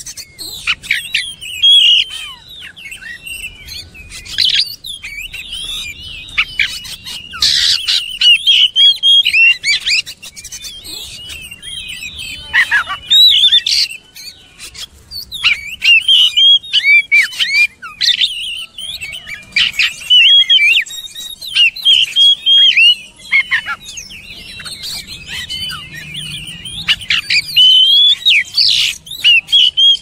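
Oriental magpie-robin singing a long, varied song of quick whistled notes, rising and falling, in loud bursts every few seconds.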